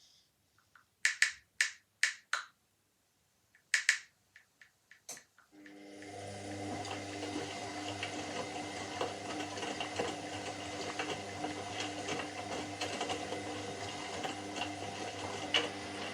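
Washing machine between phases of its cycle: a few seconds of quiet broken by several short sharp clicks, then about five and a half seconds in the motor starts and the drum runs with a steady hum that builds over a second or so and then holds.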